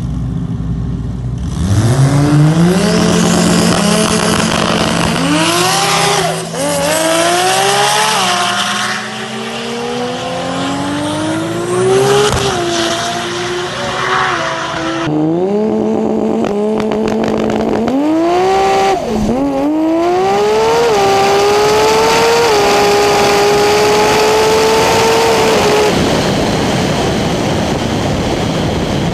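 Toyota Supra's heavily boosted, nitrous-fed 2JZ inline-six launching down a drag strip at full throttle, its pitch climbing and dropping back at each gear change. Near the end the engine note cuts out and only rushing wind and road noise remain: the cracked block letting go at the end of the pass.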